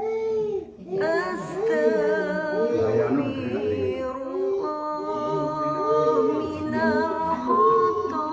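A small child crying in repeated rising-and-falling wails, over music with sustained notes.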